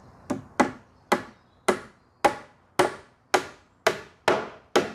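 Hammer driving a nail into a timber roof layboard: about ten steady blows, roughly two a second.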